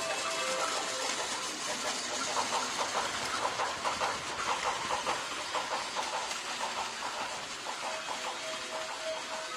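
Battery-powered Plarail Series 225 toy train running on plastic track: a steady electric motor whir with a quick run of small clicks as the wheels cross the track joints. A short repeated beeping tone comes in near the end.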